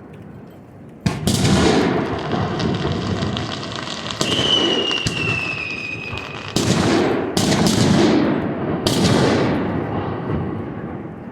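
Aerial fireworks shells bursting over a lake: about six loud bangs, each trailing off in a long rumbling echo, with crackle between them. From about the fourth second a high whistle falls slightly in pitch for about two seconds.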